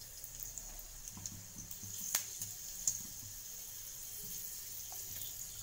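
Panch phoron seeds and dried red chillies sizzling faintly in a little hot mustard oil, with a few sharp pops from the tempering seeds crackling, the clearest about two seconds in.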